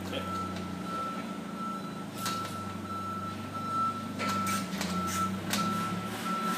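A few dull thumps as a Lexan window pane, freshly set in a snap-lock rubber gasket in a sheet-metal door, is pounded from the other side: a hit test, in which a pane that is not fully seated would pop out. Under them run a steady low hum and a high electronic beep repeating about twice a second.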